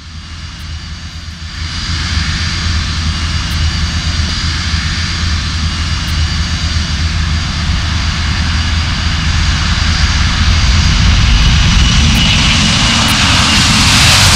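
Boeing 747-400's four jet engines at takeoff power: a heavy rumble with a high whine, growing steadily louder as the airliner lifts off and comes closer. Near the end one whining tone starts to drop in pitch as the jet passes.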